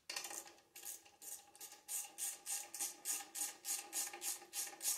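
Hand ratchet worked in short back-and-forth swings, a quick rasp of clicks on each swing, irregular for the first second and then about four strokes a second.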